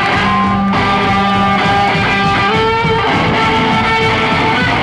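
Live rock band playing loudly, with electric guitar in the lead holding and changing notes over the rest of the band.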